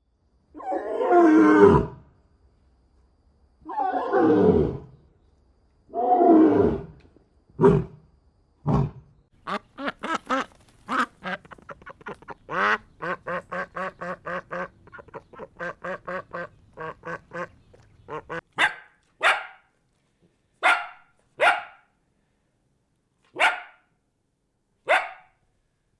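A run of animal calls. First come three long calls of about a second each, then a fast series of short calls at about two a second, then single short calls spaced a second or so apart.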